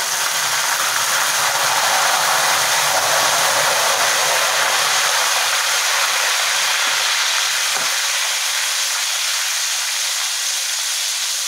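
Bitter gourd slices deep-frying in hot oil, hissing and popping loudly as a splash of salt water added to the oil boils off.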